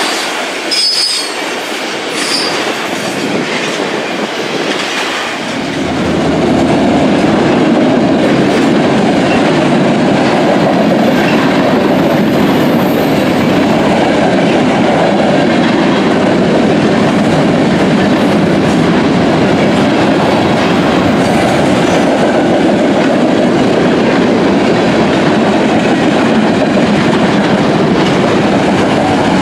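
Freight cars rolling past on the rails: a steady rumble and clatter of steel wheels, with brief high wheel squeals about one and two seconds in. About five seconds in the sound turns louder and deeper and stays steady.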